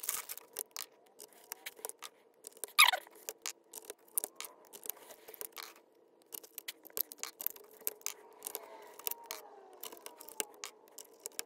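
Twist-lock plastic bulb holders being turned and pulled out of, then pressed back into, the printed circuit board of a Ford Bronco instrument cluster during an LED bulb swap, in sped-up footage: a rapid string of small clicks and scrapes. One brief falling squeak comes about three seconds in.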